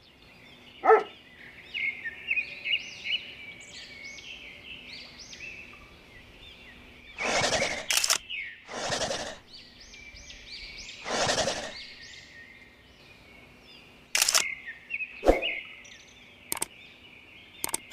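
Small birds chirping and twittering continuously. Three short, loud noisy whooshes come in the middle, and a few sharp clicks are scattered through.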